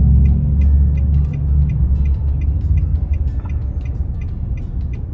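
Car engine idling, heard inside the cabin as a steady low rumble that eases off a little over a second in, with faint regular ticks over it.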